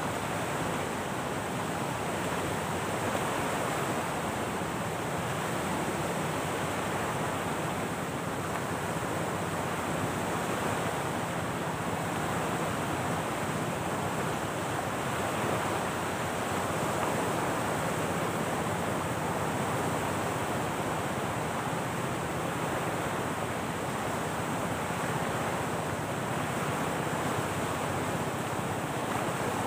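Waves washing on the shore, mixed with wind: a steady, even rush with no breaks.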